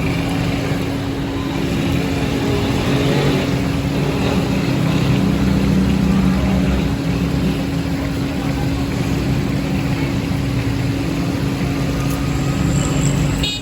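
A motor vehicle engine running with a steady hum, amid street noise.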